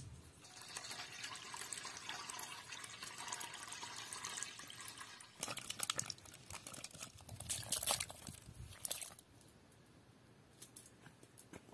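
Water sloshing in a steel bowl, then fresh green figs tipped from a wicker basket into the water, with a run of loud splashes around the middle. It goes quiet near the end, leaving a few faint clicks.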